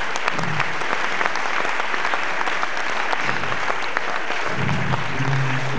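Live audience applauding steadily, a dense run of many hands clapping.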